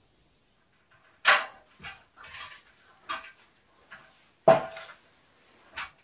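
A run of hard knocks and clatters, with two loud sharp strikes about a second in and again near the middle, and smaller knocks between them, some ringing briefly.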